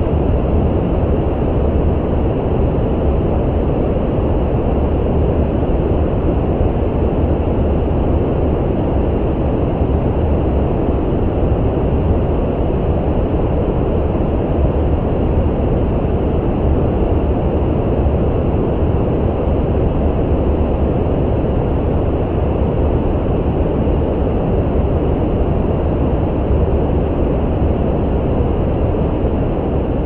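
Brown noise: a steady, even rush of generated noise, heaviest in the low end and dull, with little treble.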